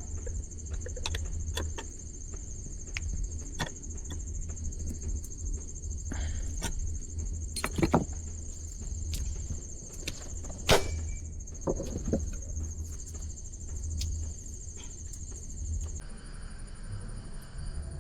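Scattered light knocks and clicks of hand work, with louder knocks about eight and eleven seconds in, over a steady high-pitched trill and a low hum. The high trill changes near the end.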